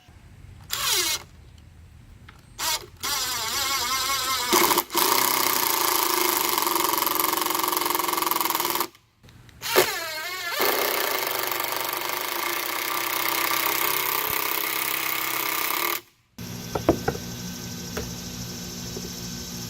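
Power tools running in a series of short, hard-cut clips: a motor spinning down near the start, then two long stretches of a power tool running steadily under load. Near the end there is a lower steady hum with a few sharp clicks.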